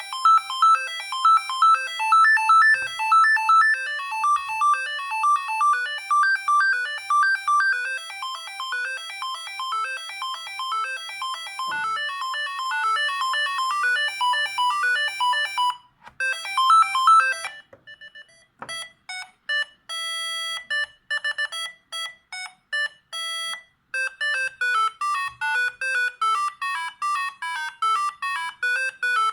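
Siemens S45 mobile phone playing a succession of its electronic ringtones. A fast, busy melody runs for about the first sixteen seconds. After a short break come sparse beeps and a held chord-like tone, then another fast melody from about three-quarters of the way in.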